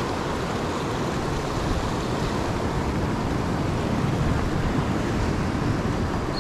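Ocean surf washing on a beach, a steady rushing noise with no distinct breaks or impacts.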